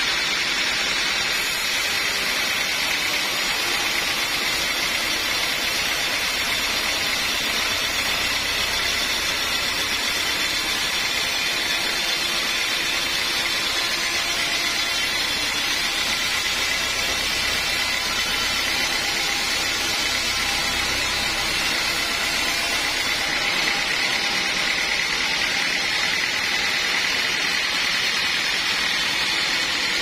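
Band sawmill cutting lengthwise through a teak log: a steady, unbroken noise from the blade running through the wood and the mill's motor, with no pauses.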